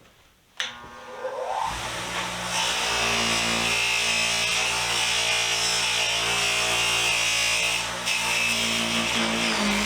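Electric buffer switched on with a click, its motor spinning up in a rising whine over about a second, then running steadily with a hiss as Craftsman wrenches are buffed on the wheel.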